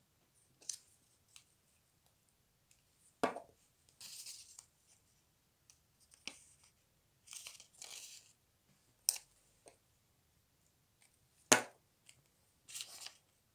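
Paper handling: short rustles of stiff folded paper as cut-out paper ears are glued into an origami corner bookmark, with about five sharp clicks or taps in between, the loudest one near the end.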